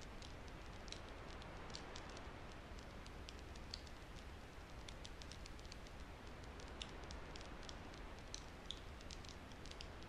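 Faint steady hiss with scattered small crackles and clicks, several a second at irregular intervals.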